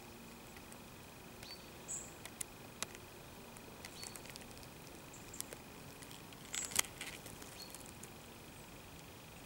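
Quiet outdoor ambience: a faint steady high tone under scattered short, high chirps and clicks, with the loudest cluster about six and a half seconds in. The slug itself makes no audible sound.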